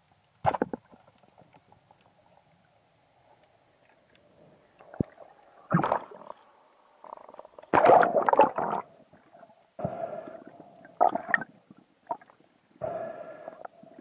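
Speargun firing underwater with one sharp loud click about half a second in, followed by muffled underwater rushing and gurgling in several bursts, the loudest about eight seconds in, as the speared fish is pulled in.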